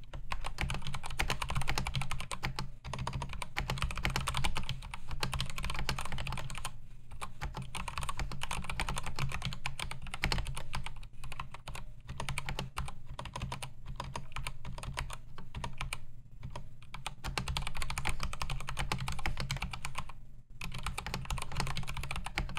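Fast, continuous typing on a Royal Kludge RK100 mechanical keyboard with Gateron Red linear switches, in its stock, not yet lubed state, with a few short pauses.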